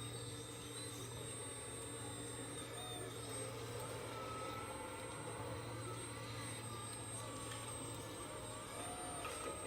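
RC 339DL hydraulic excavator's hydraulic pump running with a steady hum. From about three seconds in, whining tones rise and fall as the hydraulic functions are worked.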